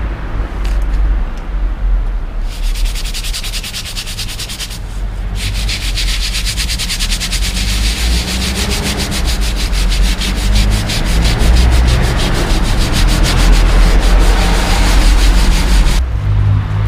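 A nail brush scrubbing graffiti off a rough rendered wall with soapy water, in quick, even back-and-forth strokes. The scrubbing starts a couple of seconds in, breaks off briefly around five seconds, and stops about a second before the end.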